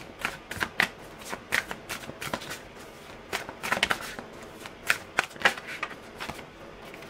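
A tarot deck being shuffled in the hands: the cards give irregular clusters of sharp snaps, with a short lull about halfway through.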